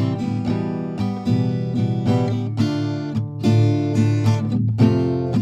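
Background music of steadily strummed acoustic guitar chords, about two strums a second.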